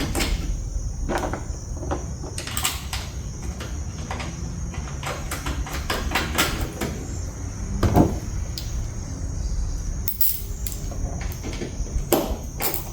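Irregular clicks and knocks of a hand tool driving T25 Torx screws back into a truck tail light, with a heavier knock about eight seconds in. A steady high tone runs underneath.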